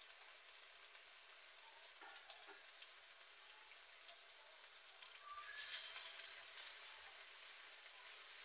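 Chicken sizzling and simmering quietly in a wok, a steady hiss. About two thirds of the way in a spatula starts stirring through the pan and the sizzle gets louder.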